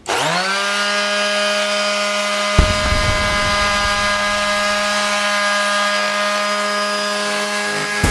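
TackLife PMS02B electric mouse detail sander switched on, spinning up within half a second to a steady high hum at its 12,000 oscillations per minute. About two and a half seconds in, the pad is pressed onto the painted surface with a knock, and a rough sanding rasp joins the hum.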